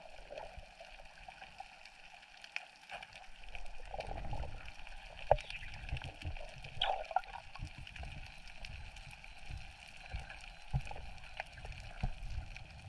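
Water sloshing and gurgling around an underwater camera, full of small scattered clicks and crackles, with low thuds and a sharper knock about five seconds in.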